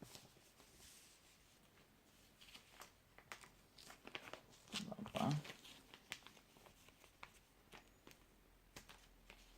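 Packaging being handled: faint crinkling and rustling with scattered small clicks and taps as items are lifted out of a box, and a brief low murmur about five seconds in.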